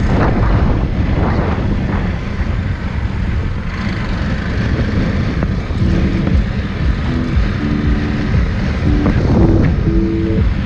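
Motorcycle on the move, with wind rushing over the microphone and the engine running under it. Music with held notes fades in about six seconds in.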